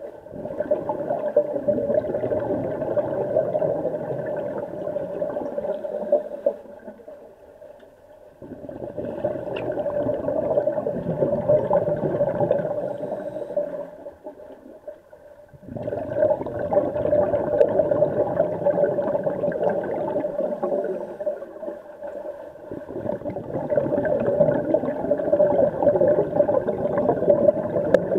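Underwater bubbling of scuba regulator exhaust as a diver breathes out, in long gurgling stretches of several seconds each with short pauses for breaths in between, heard through the water.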